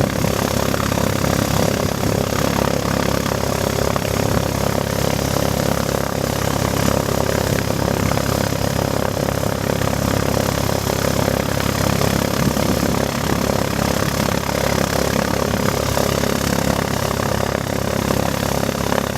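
Mooney M20E's four-cylinder Lycoming engine and propeller running at a steady speed.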